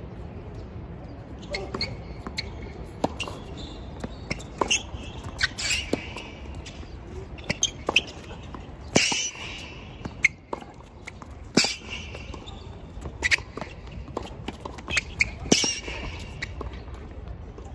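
A tennis rally: sharp pops of the ball off the racket and the court, about one every second, mixed with brief shoe squeaks.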